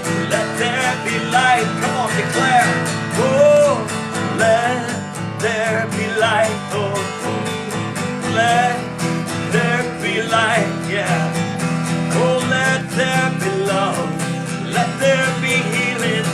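Spontaneous worship music: acoustic guitar accompaniment with a wavering melodic line, likely a voice singing without clear words.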